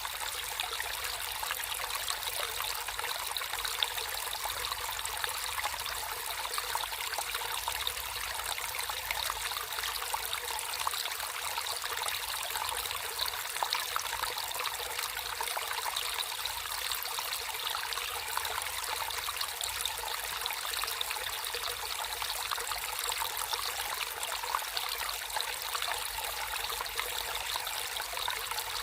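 Water flowing and trickling steadily, a constant splashing babble with no breaks.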